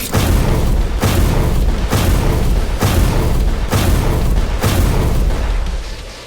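Heavy booming impacts, about one a second, over a continuous low rumble with music underneath; the level falls away near the end.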